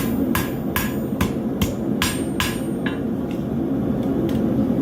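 Hand hammer striking a hot mild-steel horseshoe on an anvil, forging it into a knife blade: sharp ringing blows about two to three a second for three seconds, then a couple of lighter taps. A steady low hum runs underneath.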